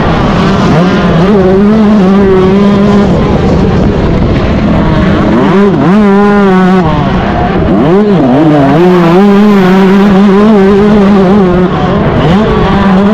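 Yamaha YZ125 two-stroke motocross engine under hard throttle, heard from on the bike over a rush of wind noise. It runs loud and holds a steady high pitch for stretches, with the revs dropping and climbing again several times around the middle.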